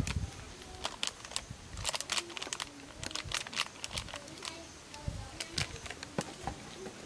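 Plastic packet of flour crinkling and rustling as it is handled, shaken and poured onto a plastic plate: a scattered series of short, sharp crackles and taps.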